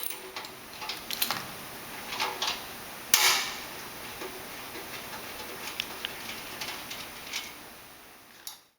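Socket ratchet clicking in short irregular runs as the dirt-shield bolts on a front tine tiller are backed out. A louder rasp of metal comes about three seconds in.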